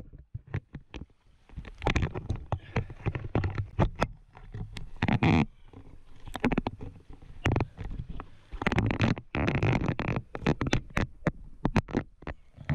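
Handling noise from a camera being gripped and repositioned close to its microphone: irregular clicks, knocks and rubbing in short bursts.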